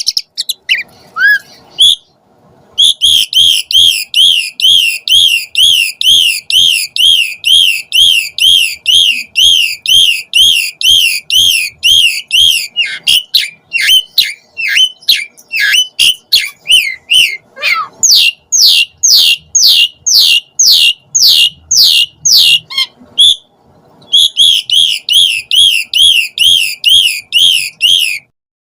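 Asian pied starling (jalak suren) singing loud, rapid song: a long run of identical rising-and-falling whistled notes, about two a second. In the middle it breaks into varied chatter and a run of short falling whistles, then returns to the repeated notes.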